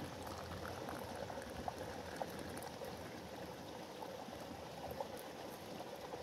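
Tea poured from a small metal teapot into a glass, a steady stream of liquid filling it, over a steady rush of running water.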